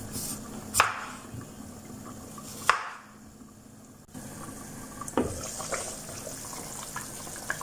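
Two knife strokes through a potato onto a wooden cutting board, then a pan of meat stew simmering with light clinks of its glass lid; the bubbling hiss grows once the lid is lifted off.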